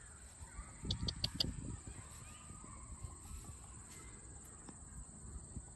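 Bird calls: a quick run of four short, high notes about a second in, over a low rumble on the microphone.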